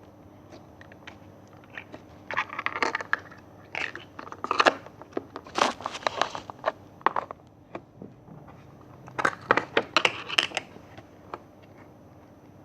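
Slime being squeezed and worked by hand, giving clusters of crackling clicks and small pops, in four spells with short pauses between.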